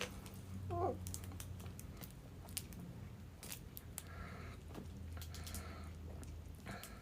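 Quiet sounds of a person drinking: faint scattered clicks and swallowing gulps, with a brief pitched squeak about a second in.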